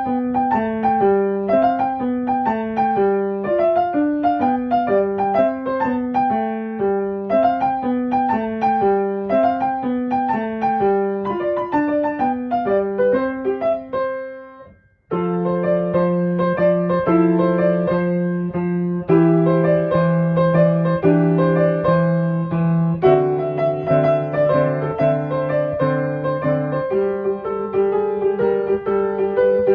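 Background piano music: a repeating run of notes that fades out about halfway through, then starts again with fuller, held low chords under the melody.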